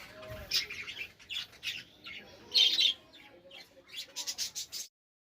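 A flock of budgerigars chattering and squawking with many short, high calls, a loud burst of squawks near the middle; the sound cuts off suddenly near the end.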